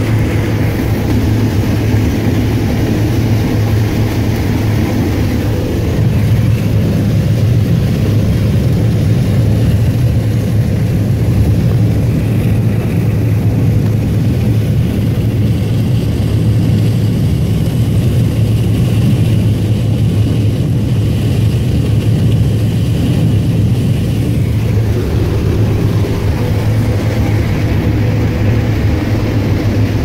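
New Holland TR88 combine harvesting corn, heard from inside the cab: a constant, loud drone of engine and threshing machinery, with a strong low hum.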